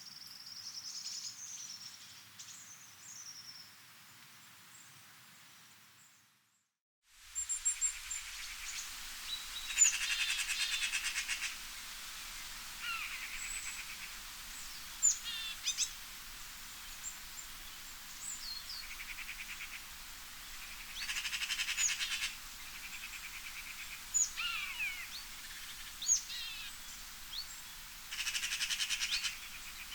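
Wild birds singing and calling: short high chirps, quick downward-sweeping whistles and a buzzy trill that comes back about every nine seconds, over a steady hiss of wind in trees. About six seconds in, the sound drops out for a second and a different recording begins.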